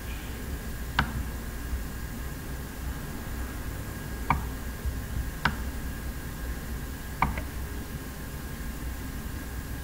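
Four sharp clicks of a computer mouse, spaced unevenly over several seconds, over a steady low hum and hiss.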